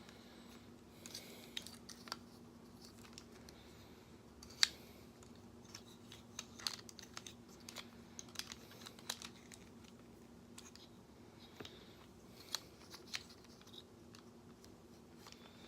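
Hard plastic parts of a Combiner Wars Sky Lynx Transformers figure clicking and rattling as it is handled and transformed. The clicks are scattered and irregular, with one sharper click about four and a half seconds in. A faint steady hum runs underneath.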